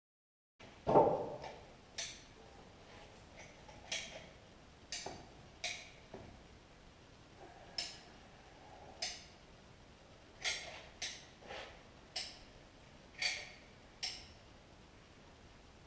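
Hand caulking gun clicking as its trigger is pumped: about a dozen short, sharp clicks at irregular intervals, with a duller knock about a second in.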